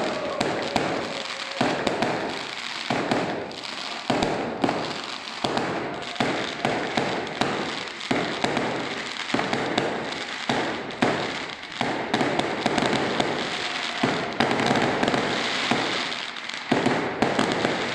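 A long string of firecrackers going off: sharp bangs coming every fraction of a second to a second, with crackling in between, welcoming the returning procession.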